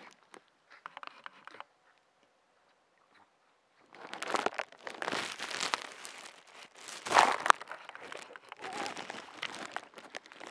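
Leaves and twigs rustling and crackling close to the microphone as shrub branches are pushed aside, in dense spells starting about four seconds in and loudest around the middle.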